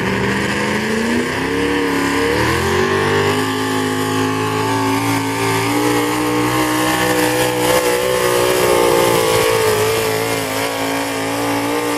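Hot rod pulling tractor's 600-cubic-inch single-carburetor engine at full throttle, dragging the weight-transfer sled. The revs climb over the first couple of seconds, hold high and steady, and fall away sharply right at the end as the throttle is cut.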